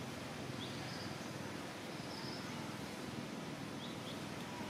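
Forest ambience: a steady hiss with a few faint, short, high chirps, a couple near the start and a pair near the end.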